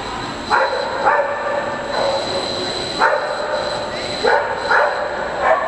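A dog barking about six times at uneven intervals, over the steady background hum of a large indoor arena.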